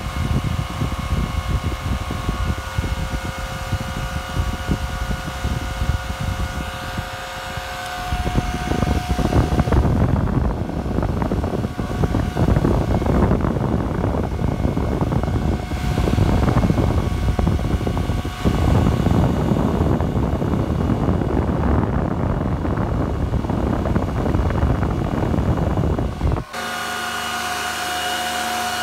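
Antminer S9 Bitcoin miner's cooling fans running at full speed: a steady rushing noise with several held tones. Wind from the fan's airflow buffets the microphone, heaviest from about eight seconds in, and near the end the sound cuts abruptly to a smoother fan hum with different tones.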